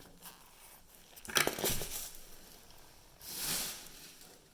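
Handling noises of parts being moved about: one sharp click about a second and a half in, then a short rustle around three and a half seconds.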